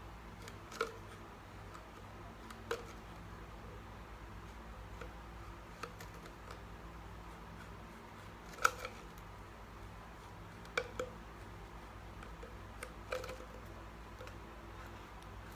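A blade sawing through the thin plastic body of a spray bottle: occasional sharp clicks and snaps of plastic, about six of them with the loudest a little past halfway, over a faint steady hum.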